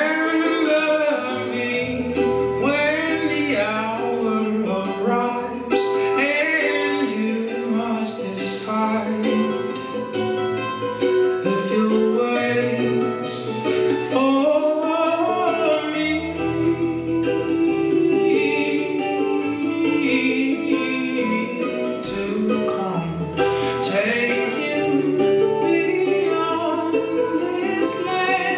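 Music: a song with singing over plucked strings and sustained low bass notes.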